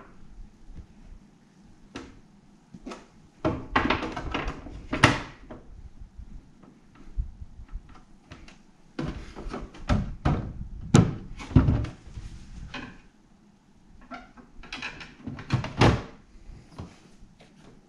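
Mash screens being handled and fitted into a clear plastic step filter: repeated knocks, clicks and clatters of the parts against the plastic, coming in bunches with short pauses between.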